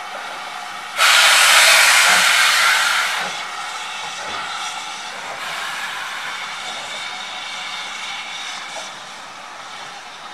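Steam locomotive hissing as it moves off slowly: a loud blast of escaping steam starts suddenly about a second in and lasts about two seconds, then a steady hiss of steam continues.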